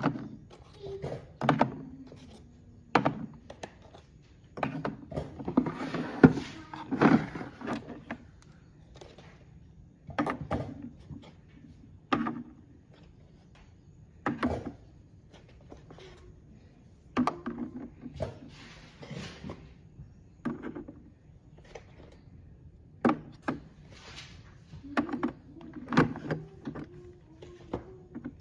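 Groceries and containers being handled and put away: scattered knocks and thunks as items are set down, with longer stretches of shuffling and rustling.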